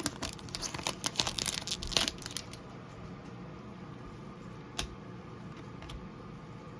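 A trading card pack's wrapper being torn open and crinkled for the first two seconds or so, then a quiet stretch with a single light click near the five-second mark.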